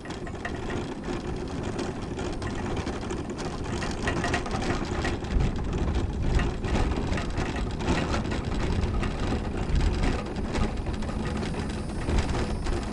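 Battery-powered mobility scooter travelling along a cracked asphalt road: its drive motor and tyres running steadily, with wind noise on the microphone.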